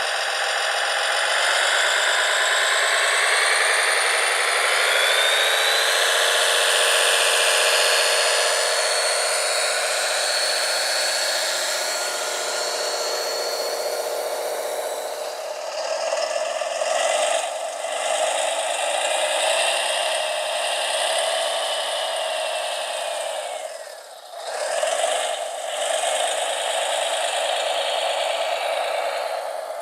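Whine of small electric motors on radio-controlled model construction machines, rising and falling in pitch as they work, with a couple of brief drops near the end.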